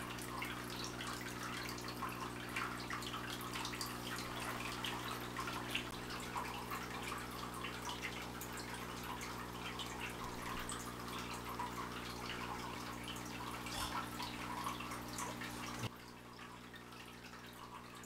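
Water dripping and trickling, many small irregular drops over a steady low hum. The dripping stops suddenly about sixteen seconds in, leaving only the fainter hum.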